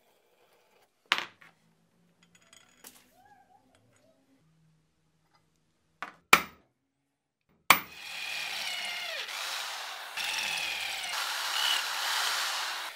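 Metal parts knocking and clinking a few times, then a tool working metal for about five seconds: a loud, harsh, continuous noise with wavering high squeals that starts and stops abruptly.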